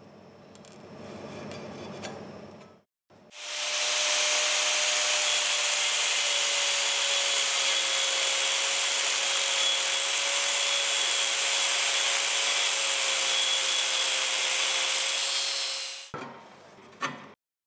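Bosch GWS 7-115 angle grinder with a thin cut-off disc cutting a notch into steel angle iron, running for about twelve seconds under steady load with a constant motor whine over the hiss of the cut, starting about three seconds in and stopping shortly before the end.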